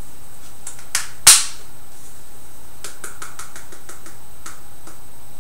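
Sharp clicks and light taps from a small spice jar of cloves being handled and shaken out over a mixing bowl. There is one loud click about a second in, then a quick run of light taps about three seconds in and a few scattered ones after.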